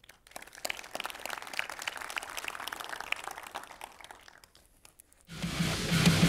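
Audience applauding, the clapping dying away after about four and a half seconds; music starts suddenly near the end.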